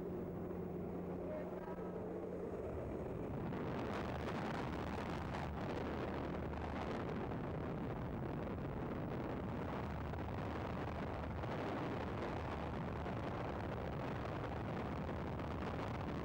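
Jump plane's engine droning steadily, then from about three seconds in a rush of wind noise from the slipstream at the open door buffets the microphone and covers the engine for the rest of the time.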